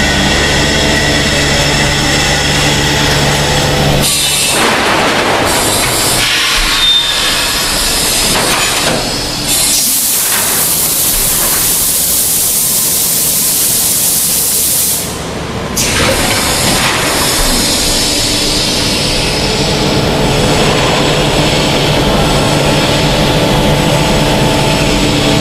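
MX700-1200 vacuum forming machine running: steady mechanical noise with a low hum that drops out about four seconds in, and a long hiss a little before the middle that lasts about five seconds.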